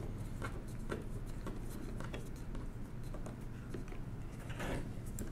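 Screwdriver turning a small screw out of a Monroe Model K mechanical calculator's metal frame: light clicks and ticks of metal on metal about every half second, with a longer scrape near the end.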